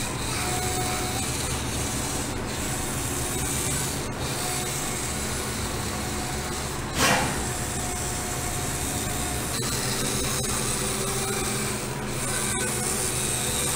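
Steady rubbing, grinding noise of a toy remote-control tractor's small electric motor and gears driving, with one short knock about seven seconds in.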